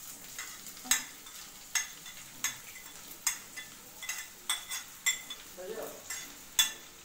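Sliced onions going into hot oil and cumin in a kadhai, sizzling steadily, with about a dozen sharp irregular clicks of a spatula scraping and tapping the onions off a ceramic plate.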